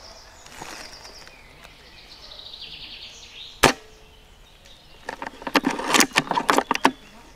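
A single sharp shot from a spring-powered L96-type bolt-action airsoft sniper rifle, with a short faint ring after it. About a second and a half later comes a run of clicks and rattles.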